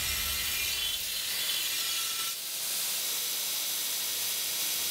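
Belt grinder's abrasive belt grinding a forged 5160 steel sword blade: a steady, high-pitched hiss that dips briefly about two seconds in.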